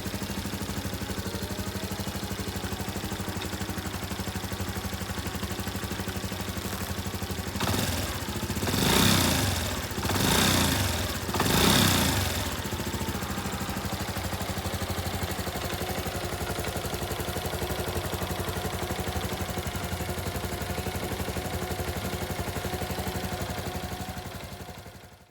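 Honda Super Cub 110 (JA10) air-cooled single-cylinder engine idling steadily, with three short blips of the throttle about eight to twelve seconds in. It dies away at the very end.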